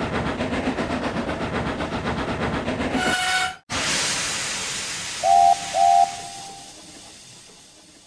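Steam locomotive sound effect: fast, even chuffing for about three seconds ending in a brief whistle, then a long release of steam hissing and slowly fading. Two short, loud whistle toots come about halfway through the hiss.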